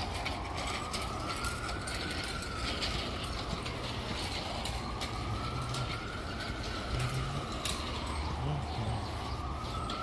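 An emergency vehicle siren wailing, its pitch slowly rising and falling about once every four seconds, over a steady street-traffic rumble.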